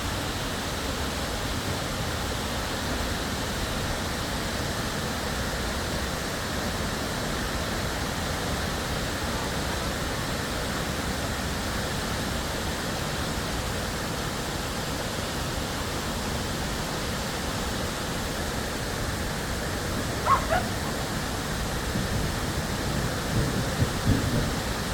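Waterfall rushing steadily. About 20 seconds in there is a brief call, and some low irregular sounds come near the end.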